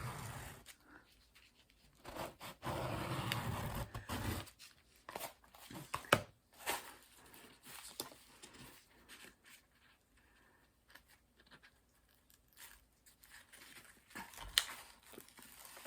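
Paper and plastic film on a diamond painting canvas rustling and crinkling as it is handled, with a denser stretch of rustling a few seconds in and a few sharp light taps later.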